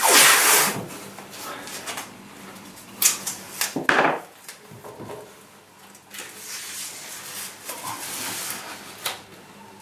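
Masking tape torn off the roll in a loud rip right at the start, then handled and pressed down on a paper template. A few sharp clicks come about three to four seconds in, and there is rustling later.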